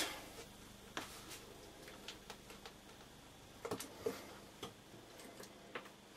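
Faint, scattered clicks and taps of hands handling a small 3D-printed camera gimbal and action camera on a cutting mat, with a small cluster of clicks about four seconds in.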